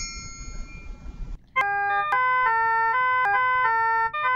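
A chime tune: clear bell-like notes in a short melody, several sounding together and changing every few tenths of a second, starting about a second and a half in. Before it a faint ringing tone fades out over a low hum.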